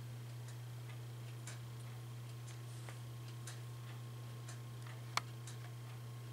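Faint, even ticking about once a second over a steady low hum, with one sharper click about five seconds in.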